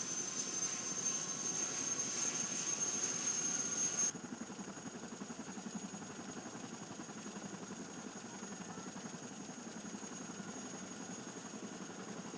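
Helicopter turbine engine and rotors running, with a steady high-pitched turbine whine. About four seconds in, the sound cuts abruptly to a quieter, steady rotor and engine hum without the whine.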